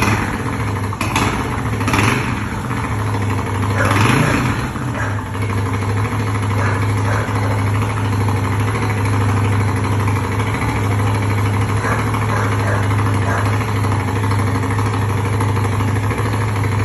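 Moto Guzzi V9 Bobber's air-cooled V-twin running through mufflers with the baffles removed, idling steadily after a few short throttle blips in the first four seconds.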